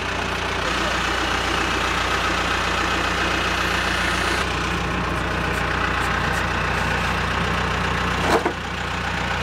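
An engine idling steadily, from the machine lifting the strapped redwood root. A single short knock sounds near the end.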